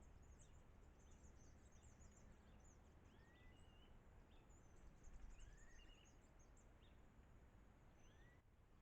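Faint chirping and calling of small birds: many short, high-pitched chirps, with now and then a rising whistled call, over a low background hiss.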